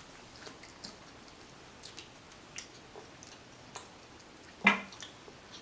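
Close-up mouth sounds of eating: scattered soft wet chewing clicks and smacks, with one louder smack near the end.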